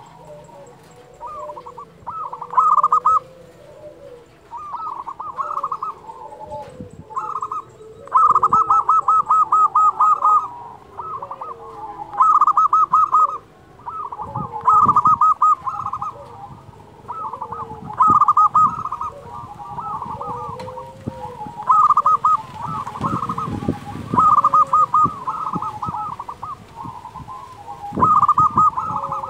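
Zebra dove cooing: loud bursts of rapid, stuttering trilled notes repeated about every two seconds, with softer, lower notes between them.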